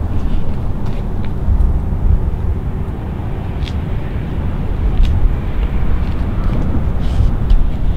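Steady low outdoor rumble, uneven in level, with a few faint short clicks in the second half.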